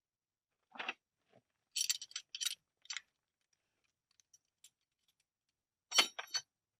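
Metal hand tools being handled: a few short clicks and clinks about a second in, a quick cluster around two to three seconds, and another cluster near the end.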